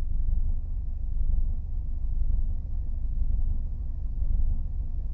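2002 Mercedes-Benz W210 E220 CDI four-cylinder common-rail diesel idling with a low, uneven rumble whose loudness wavers irregularly: the intermittent rough idle that the owner cannot trace.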